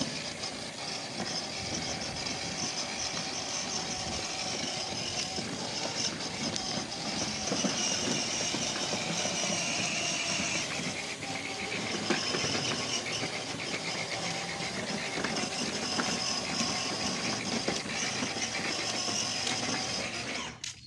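Battery-powered ride-on toy car running, its electric drive motors whining steadily and its plastic wheels grinding over rough concrete. The sound cuts off just before the end.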